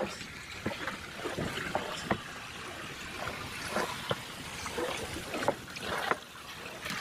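Kayak hull sliding down a lock's boat rollers: a run of irregular knocks and clunks as it rides over each roller, over water trickling down the channel. Splashing as the bow runs into the water partway through.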